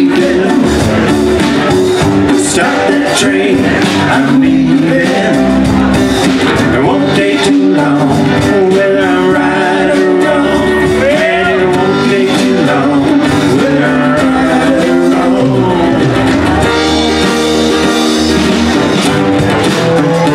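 Live band playing an instrumental passage of a song: strummed acoustic guitar, electric guitar, keyboard and drums, with a saxophone.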